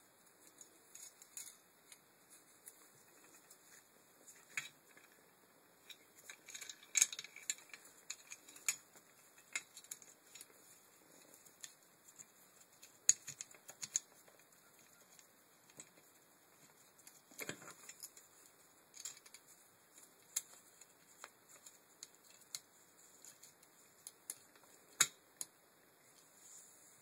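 Scattered sharp clicks and light rattles of a Land Rover Freelander MK1 tailgate window regulator's metal rails, cables and pulley carriers being handled by hand, with a few louder knocks among them and a longer rustle partway through.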